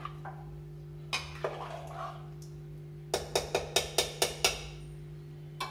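A steel spoon stirring in a pressure cooker pot and knocking against it, with a few single clinks and then a quick run of about seven sharp taps about three seconds in, over a steady low hum.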